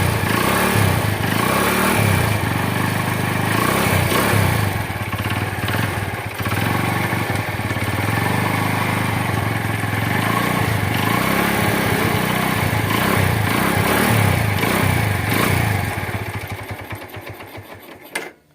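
Motorcycle engine running on a freshly fitted spark plug, now starting and running after having refused to start. Its revs rise and fall a few times, and the sound fades away over the last couple of seconds.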